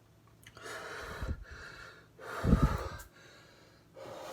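A man breathing heavily through the mouth, two long breaths a second or so apart with the second the loudest, a reaction to the burn of a superhot chocolate jigsaw chili building on his tongue.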